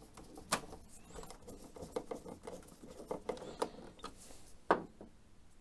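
Phillips screwdriver turning a screw into the plastic case of an Epson XP-55 printer: a run of small, irregular clicks and scratchy ticks, with a sharper click about half a second in and another near the end.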